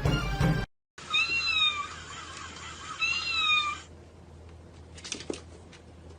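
A short stretch of music cuts off, then a cat meows twice: two drawn-out meows, each rising and falling in pitch, about two seconds apart.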